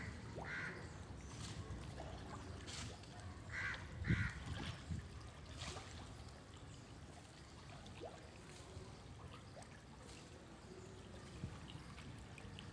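Catfish churning in the shallow water of a crowded cement tank: steady trickling and splashing, with a few sharper splashes, the loudest about four seconds in.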